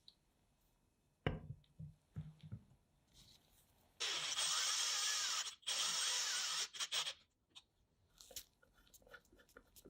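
1906 automatic pencil sharpener cutting a pencil, giving a dry crunchy grinding in two stretches, the first about a second and a half, the second shorter, after a few light knocks as the pencil is set in. Scattered clicks follow.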